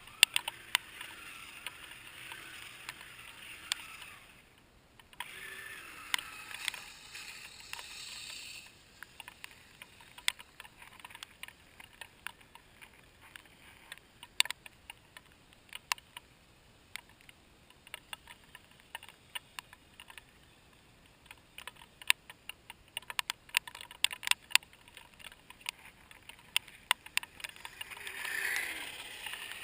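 Kyosho Blizzard radio-controlled snowcat's electric motor whining in two spells of a few seconds each near the start, and again briefly, rising and falling, near the end. Scattered sharp clicks and clatter run throughout as its tracks slip on icy crust.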